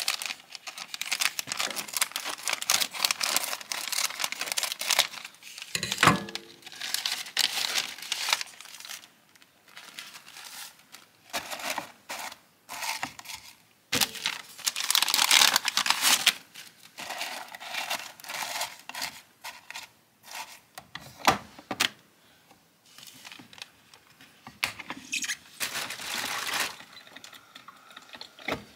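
Paper crinkling and rustling as a brown paper coffee bag is cut open with scissors and handled, in stretches with short pauses, with a few sharp clicks scattered through.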